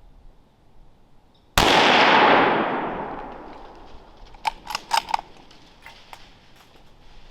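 A single 350 Legend rifle shot, sudden and loud, its report rolling away and fading over about two seconds. A few sharp clicks follow about three seconds later.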